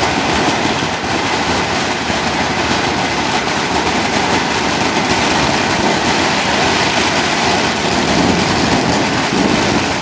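Steady, loud, dense noise of a torchlit street procession marching past, a blend of crowd and street hubbub with no clear rhythm.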